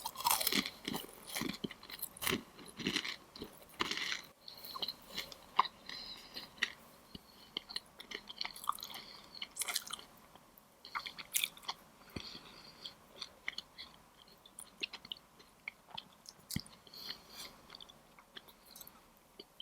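Close-miked chewing of crisp Chinese pastries: crunchy bites and chewing clicks, dense in the first few seconds and sparser and softer later.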